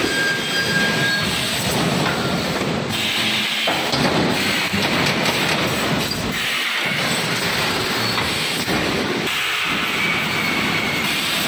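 EPS 3D wire mesh panel welding machine running: a dense, steady mechanical noise whose character shifts every few seconds.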